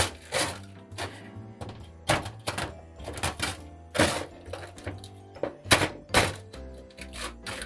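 Background music with held tones and sharp, frequent percussive hits.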